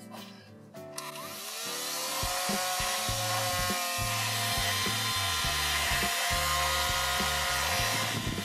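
Small electric motor of a toy desk fan switching on about a second in, whining up in pitch as it spins up and then whirring steadily, with background music underneath. The whir stops near the end.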